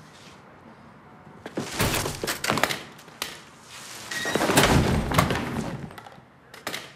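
A man falling heavily against metal store shelving: thuds with rattling and crashing goods in two spells, then a single sharp knock near the end.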